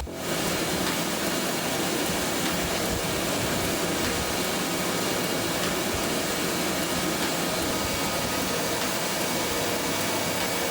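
Steady, even rushing noise of running machinery, with faint high whining tones held throughout. It starts just after a brief drop in level at the very beginning.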